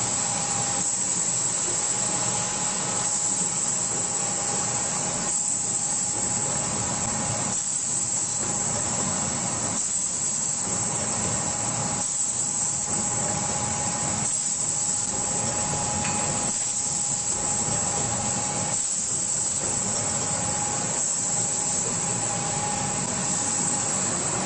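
Automatic servo-driven screen printing machine running: a steady mechanical hiss with a thin steady whine, in a cycle that repeats about every two seconds.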